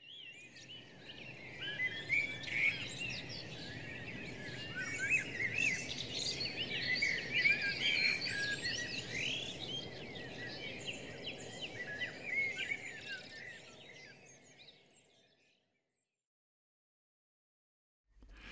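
A chorus of small birds chirping and twittering, many short rising and falling calls over a soft hiss. It fades in at the start and fades away about three-quarters of the way through.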